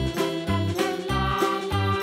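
Background music with a steady bass beat about twice a second under a bright melody.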